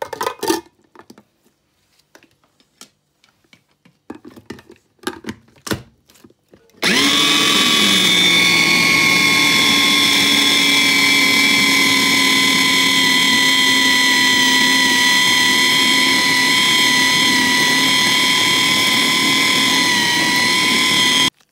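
A few clicks and knocks as the plastic bowl is handled, then about seven seconds in an electric food processor's motor starts and runs at a steady, loud pitch for about fourteen seconds, grinding boiled potatoes into bulgur, before cutting off abruptly.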